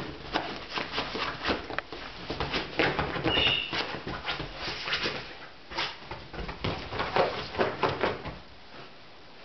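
Dog digging and scrabbling at fabric sofa cushions: paws scratching and rustling on the upholstery in quick, irregular bursts with soft thumps as it bounds about, and a brief high squeak about three and a half seconds in. It stops about a second before the end.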